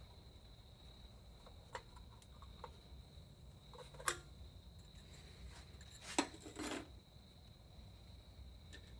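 Scattered metallic clinks and knocks of tools and small parts being handled, the sharpest about four seconds in and another just past six seconds, followed by a short scrape, over a faint steady high whine.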